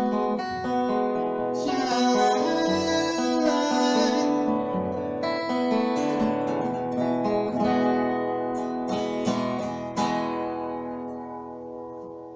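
Acoustic guitar strumming the closing chords of a song, with a quick run of strums about nine to ten seconds in; the last chord then rings out and fades away.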